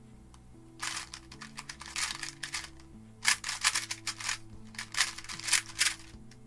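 Plastic 2x2 speedcube, a GAN 251M Leap, being turned quickly in bursts, its layers clicking and clacking, over background music with a steady beat.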